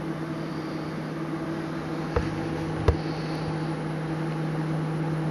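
Dimension BST 768 3D printer running through its start-up initialization, a steady mechanical hum with a low steady tone. Two sharp clicks come a little over two and about three seconds in as the extrusion head moves.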